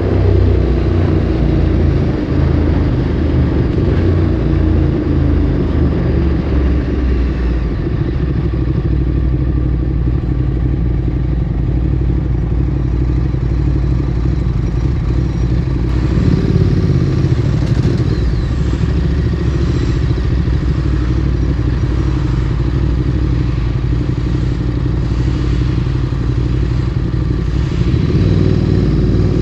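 Ducati Streetfighter 848's L-twin engine running through a Termignoni exhaust as the bike is ridden, heard from the rider's position. The engine note holds fairly steady through the middle and picks up again near the end.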